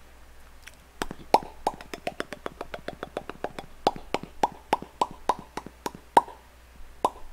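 Close-miked wet chewing and lip-smacking of boneless fried chicken: a quick, irregular run of sharp wet clicks, several a second, starting about a second in and stopping near the end.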